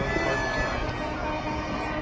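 Music with several held, steady notes over a dense background, with no distinct firework bangs.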